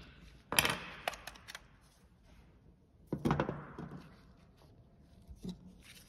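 Light plastic clicks and knocks as the retaining clips of a BMW E92 headlight switch are pried with a small screwdriver and the switch is worked out of its dash trim. A cluster of clicks comes about half a second in, another about three seconds in, and a single faint one near the end.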